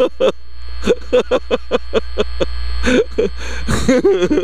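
Dirt bike engine revving up and down in short bursts while climbing a rocky hill trail, with steady wind rumble on the helmet-mounted microphone.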